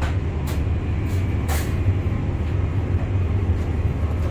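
Steady low rumble of an ICE high-speed train running at speed, heard from inside the carriage, with a couple of faint brief rustles early on.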